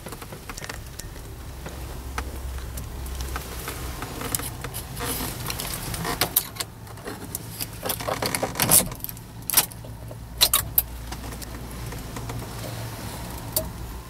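Keys on a ring jangling and clicking as a key is put into the ignition lock and turned, the sharpest clicks coming in a cluster from about six to eleven seconds in, over a steady low hum.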